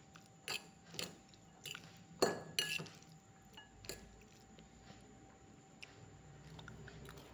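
Metal eating utensil clinking and scraping against a dish while stirring noodles with sauce: a run of light clinks, the loudest about two and a half seconds in, tapering off after about four seconds.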